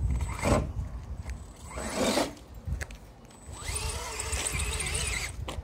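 RC crawler's electric motor and gear drive whining in three throttle bursts: two short ones, then a longer one whose pitch rises and then holds for about a second and a half.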